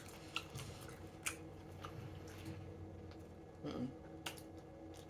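Close-miked mouth noises of someone chewing food: scattered soft, wet clicks and smacks. A short, low voiced sound comes near the middle, a little past three and a half seconds.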